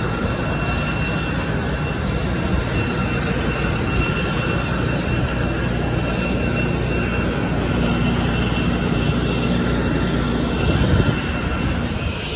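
Steady jet aircraft noise on an airport apron: a continuous rumble with a thin high whine over it, and a brief louder bump near the end.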